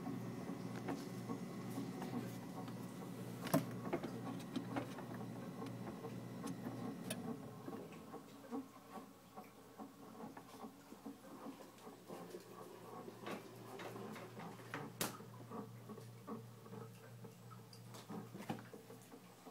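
Fan in a brand new Frigidaire refrigerator running with a hum and a thin whine, overlaid by irregular clicking and ticking. The fan is the noise the owner blames. About eight seconds in the whine cuts out and the hum fades, leaving scattered clicks.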